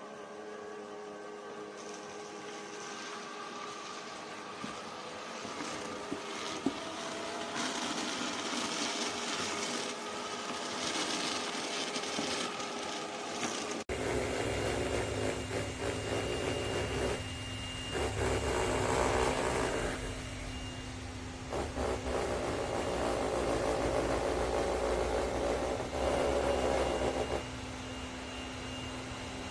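Eureka E20 Plus robot vacuum's motors running with a steady whine. About halfway through, the sound changes abruptly to a louder, deeper running that comes and goes in several surges.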